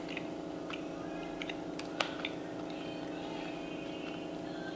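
A person chewing a raisin cookie close to the microphone: scattered small mouth clicks and crunches, the sharpest about two seconds in, over a steady low hum.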